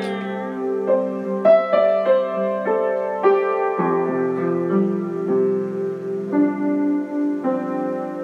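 Yamaha upright piano played in an unhurried melody over held chords, a new note or chord struck every half second or so, each ringing on as the next comes in.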